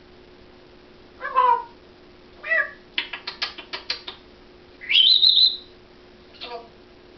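African grey parrot vocalizing: a few short pitched calls, a quick run of about eight clicks lasting about a second, and a rising whistle about five seconds in.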